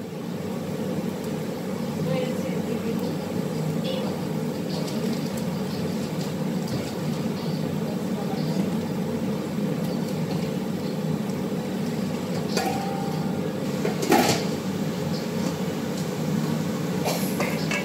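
Steady low mechanical hum in a kitchen, with a sharp knock of metal about 14 seconds in and another near the end.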